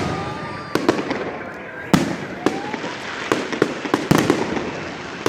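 Fireworks display: shells bursting in an uneven series of about nine sharp bangs, with crackling between them and a couple of short whistles.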